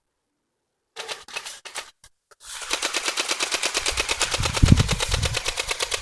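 Airsoft electric gun firing on full auto. A few quick shots come about a second in, then a long continuous burst of rapid, evenly spaced shots lasts about four seconds, with a low thump partway through.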